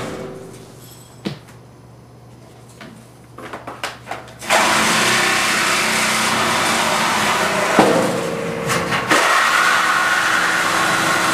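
Cordless reciprocating saw cutting through a steel body panel and its frame tubing. It stops near the start, gives a few short trigger bursts at about 3 to 4 seconds, then runs steadily through the cut, with a sharp metallic clank about 8 seconds in.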